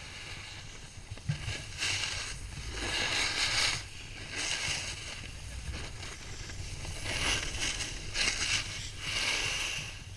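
Snowboard edge scraping and hissing over packed snow in repeated swells as the rider carves turns, over a steady rumble of wind on the microphone.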